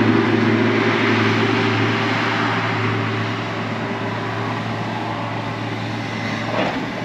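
John Deere skid steer loader's diesel engine working under load as it pushes a packed snow pile back: a steady low engine hum under a rushing noise that slowly fades.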